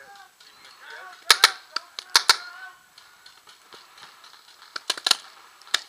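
Paintball markers firing, loud sharp pops: two quick pairs in the first half, a burst of three about five seconds in and a single shot near the end, with fainter pops between.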